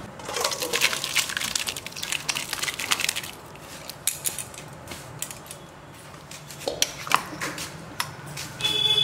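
A spoon scraping and clattering against a cooking pan for about three seconds as the cooked chicken tadka is served out of it. A few scattered clinks of utensils follow, ending in a short ringing clink.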